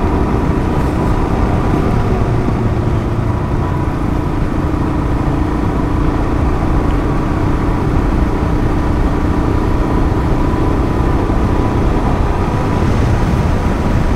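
Heavy wind noise on the microphone from riding at road speed, over the steady running of a Royal Enfield Himalayan's 411 cc single-cylinder engine holding an even pace.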